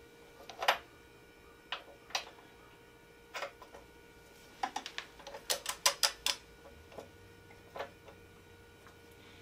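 Ratchet of a torque wrench clicking in short strokes while tightening a motorcycle's front axle: scattered sharp clicks, with a quick run of about five clicks a little past halfway.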